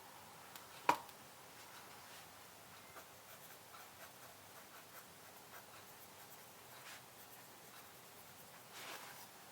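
Faint sounds of desk work during study: one sharp click about a second in, then sparse light ticks and taps, and a brief soft scratching near the end.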